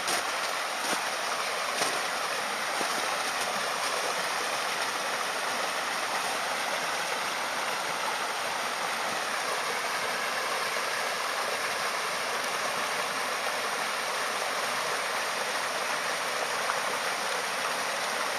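Steady rush of flowing water, even and unbroken, with a few faint clicks in the first few seconds.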